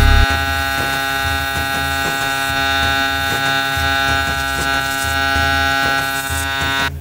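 Background music: a sustained electronic drone chord over a pulsing low bass, which cuts off abruptly at the end.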